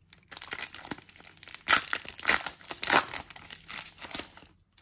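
Wrapper of a Goddess Story trading-card pack being torn open and crinkled by hand: a run of crackling rips and crinkles with several louder tears, stopping just before the end.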